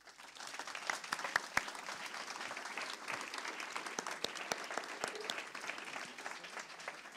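Audience applauding: many hands clapping, building up over the first second and then going on steadily.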